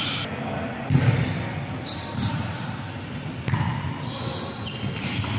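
A volleyball being struck and bouncing, several sharp smacks about a second apart that echo in a large sports hall.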